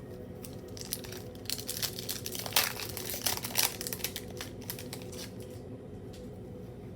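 Foil wrapper of a Pokémon card booster pack crinkling and tearing as it is opened, loudest in the middle.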